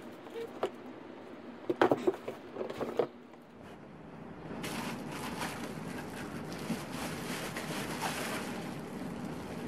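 A few sharp knocks and scrapes against a cardboard box in the first three seconds. From about four and a half seconds in comes a steady crackle of plastic wrapping being handled around a boxed pressure washer.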